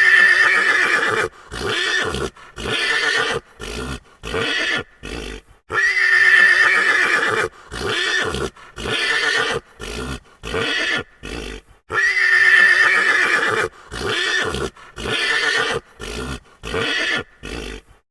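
Horse neighing: one long whinny followed by a string of shorter calls, the same recording played three times over, about every six seconds.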